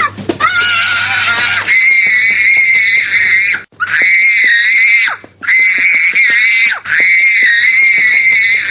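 A young child screaming in a tantrum: five long, high-pitched screams, each held a second or two, with short breaks for breath between them.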